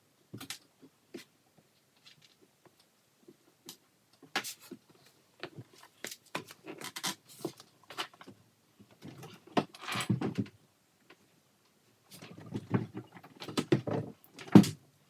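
Irregular clunks, knocks and scraping as a heavy Sea-Doo engine is worked loose and wrestled out of the hull. The contact comes in clusters, with a sharp knock near the end.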